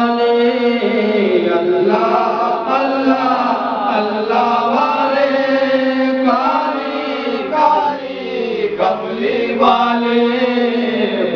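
A man chanting the Arabic durood (salawat on the Prophet) into a handheld microphone, in a slow, drawn-out devotional melody with long held notes.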